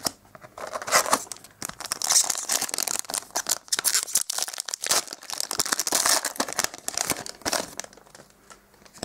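Foil wrapper of a trading-card booster pack being crinkled and torn open by hand: a dense crackling rustle full of sharp crinkles, dying down near the end.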